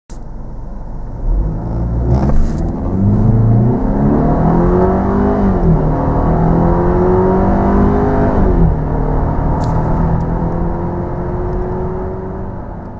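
Mercedes-Benz E 250's 1.8-litre turbocharged four-cylinder petrol engine under full-throttle acceleration from a standstill, heard from inside the cabin. About a second in the engine note jumps up in level and climbs steadily, dropping back at two upshifts of the 7G-TRONIC PLUS automatic about five and nine seconds in, then fades out near the end.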